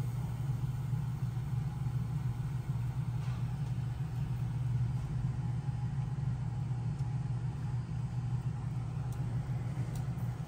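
A steady, low mechanical hum that does not change, with a faint rumble beneath it and no other sound standing out.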